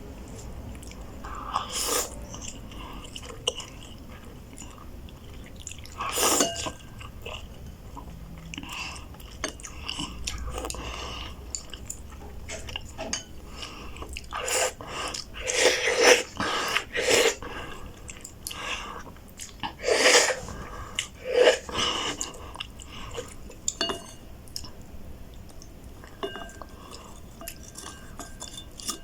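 A person eating roast beef ramen noodles, chewing and biting with irregular wet mouth sounds. A run of louder bursts comes in the middle.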